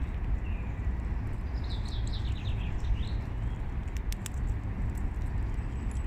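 A songbird sings a short phrase of quick, descending chirps about two seconds in, over a steady low rumble of outdoor background noise. A few sharp clicks follow about four seconds in.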